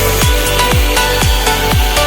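Background electronic dance music with a steady kick drum about twice a second under held synth tones.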